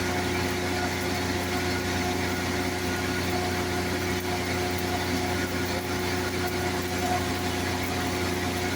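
Engine of an engine-driven welding machine running at a steady speed, a constant even hum.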